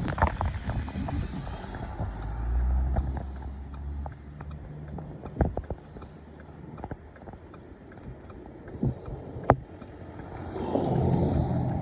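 Car driving on a snowy road: steady low rumble of engine and tyres, with scattered sharp knocks. The noise swells louder near the end.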